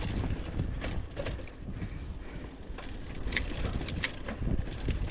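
Mountain bike rolling down a rough dirt trail, its chain and parts rattling, with a few sharp clicks and knocks over bumps.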